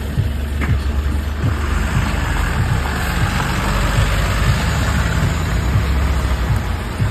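Diesel engine of a Tata 4830 sixteen-wheel truck running steadily close by, a deep, even engine sound.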